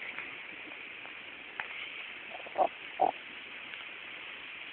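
Steady hiss of falling rain. A little past halfway through there are two short, loud sounds about half a second apart.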